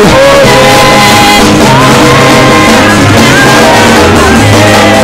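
Loud live gospel praise music: long held sung notes over a bass line, with shouting voices.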